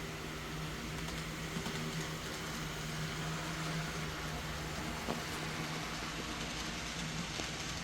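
HO-scale model locomotive running on layout track: a steady hum with a few faint clicks over a constant hiss.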